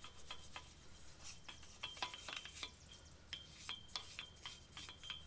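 Hand-cleaning the bare front wheel hub of a Chevrolet 3500 pickup: irregular scraping and rubbing strokes on the metal, with short clicks and a brief high metallic ring on several strokes.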